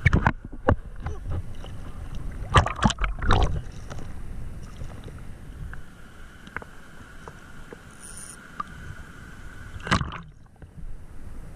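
Shallow sea water lapping and sloshing against a camera held at the water surface, with a low rumble of moving water; a cluster of louder splashes comes about two and a half to three and a half seconds in, and another near ten seconds.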